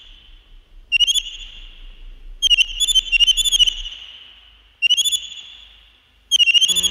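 High, warbling whistle-like synthesizer tones in short repeated phrases, each a quick wobble up and down in pitch that fades away. The full track, with synth bass and chords, comes in near the end.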